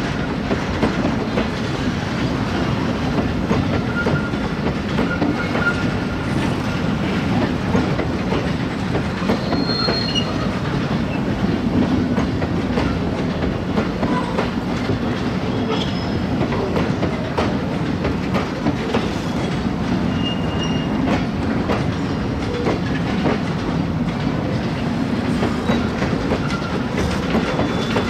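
Bogie oil tank wagons of a freight train rolling past: a steady rumble of steel wheels on the rails with clickety-clack over the joints, and a few brief, faint wheel squeals.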